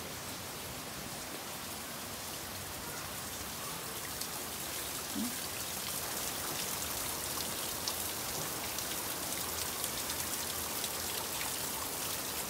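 Steady rush of falling water from a waterfall, an even hiss that grows gradually louder, with faint scattered ticks.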